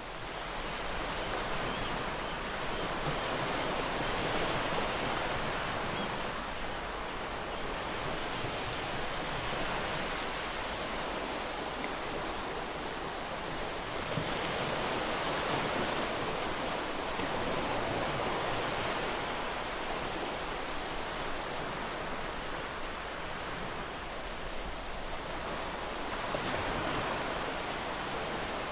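Ocean waves breaking and washing onto a shore, a continuous rush of surf that swells every few seconds.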